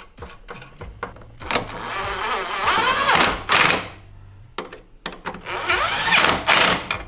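Electric impact wrench running the top-mount nuts of a coilover down onto the strut tower, in two runs whose pitch rises and falls: a longer one of about two and a half seconds, then a shorter one near the end. A few light clicks of handling come first.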